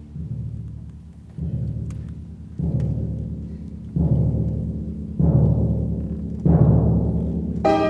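Orchestral music: six slow, heavy, low drum-like strokes about a second and a quarter apart, each louder than the last and ringing away, over a low held tone. Near the end the strings come in with a sustained chord.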